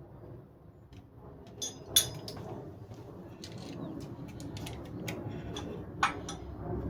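Hands working parts during a brake light ring install: scattered small clicks and clinks, with a sharp loud click about two seconds in and another about six seconds in, over a low steady hum.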